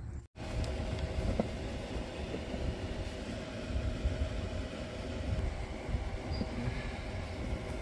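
Steady low mechanical rumble with a faint constant hum and a few light ticks.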